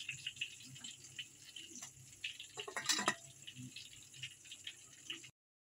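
Faint crackling and small watery ticks over a low steady hum, with a clatter about three seconds in as the metal lid of a rice cooker is set on its pot; the sound cuts off suddenly near the end.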